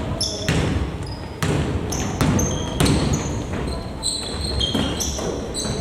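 A basketball bouncing on a court floor during play, with repeated thuds and many short, high squeaks of sneakers on the floor.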